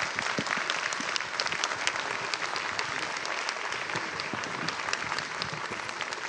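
A large audience applauding steadily, many hand claps blending together.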